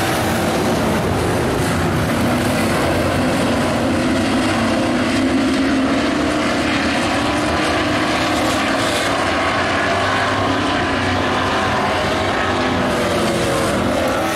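Engines of dirt-track race trucks circling the track, blending into one steady drone that rises and falls slowly in pitch.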